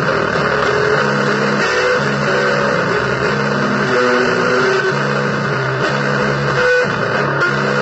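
Electric guitar playing a repeating low blues riff, chords changing about once a second, buried in a dense wash of noise.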